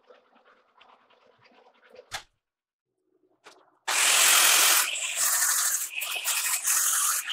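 Faint cutting noise with scattered ticks from a metal lathe facing a steel plate, then after a short pause a loud angle grinder grinding steel plate, starting about four seconds in and wavering in level as it is worked across the surface.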